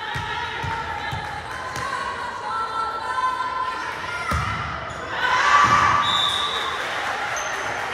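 Volleyball thumping on a hard gym floor: three quick bounces about half a second apart near the start, then two heavier hits later on. Players and spectators shout throughout, and their voices swell after the second heavy hit.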